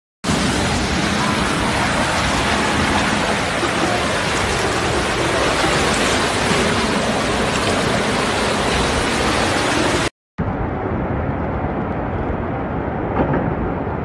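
Fast-flowing floodwater rushing through a street, a loud steady noise of churning water. It cuts out about ten seconds in, then comes back duller and more muffled.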